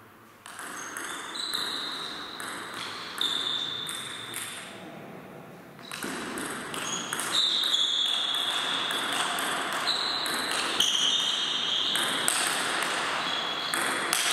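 Table tennis ball clicking off the rackets and the table during play, each hit followed by a short, high ringing ping and echoing in a large hall; a lull about four seconds in, then a faster run of hits.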